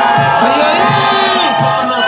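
Tarka flute ensemble playing tarkeada music in held, parallel tones over a steady bass drum beat.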